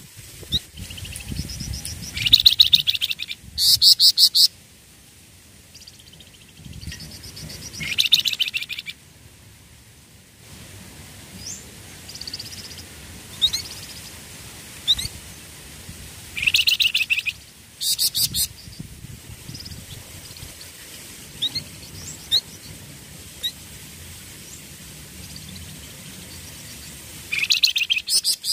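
Flamboyan songbird singing: loud, rapid trilled phrases about a second long, five times, with short single chirps between them.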